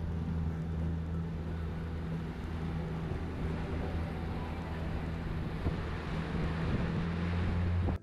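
Outboard motor running steadily at cruising speed, pushing a boat along, with the rush of wind and water under a constant engine drone.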